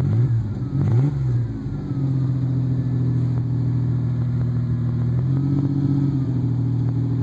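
1988 Ford Ranger's 2.9 L pushrod V6, fitted with a cold air intake, running after reassembly. It is blipped twice in quick succession near the start, then settles to a steady idle, lifting slightly about five seconds in.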